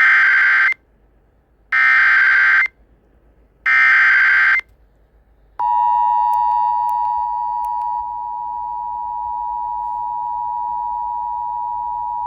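Emergency Alert System SAME header and attention signal announcing a severe thunderstorm warning. Three short screechy data bursts, each about a second long, are followed about five and a half seconds in by the steady two-tone attention signal.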